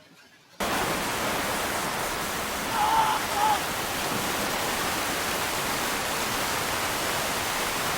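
Heavy storm downpour pounding down: a dense, steady hiss that starts suddenly about half a second in. A short high-pitched sound cuts through it about three seconds in.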